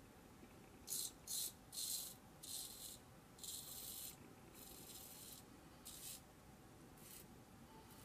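Ming Shi 2000S adjustable double-edge safety razor, set on 6, scraping through lather and stubble on the cheek in about eight short strokes.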